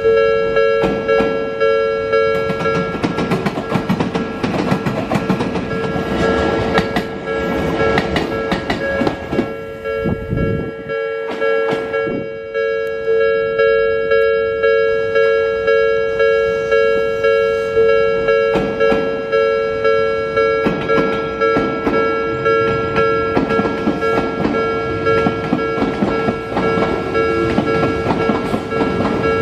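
Japanese railway level-crossing warning bell ringing continuously, with a regular strike about one and a half times a second. Odakyu electric trains clatter over the rail joints with a clickety-clack. The wheel noise fades around ten seconds in and builds again over the last several seconds.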